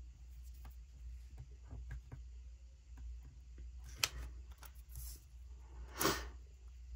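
Quiet handling of a paper sticker sheet and metal tweezers: faint scattered taps and clicks, a sharp tick about four seconds in, and a brief paper crackle about six seconds in as a sticker is peeled off the sheet. A low steady hum runs underneath.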